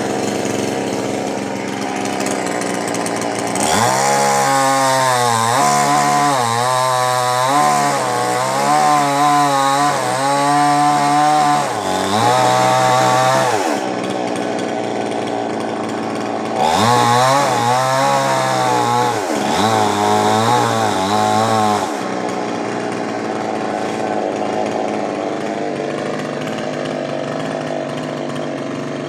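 Two-stroke chainsaw idling, then revved up and down in repeated surges roughly once a second, in two spells with a pause between, before settling back to a steady idle.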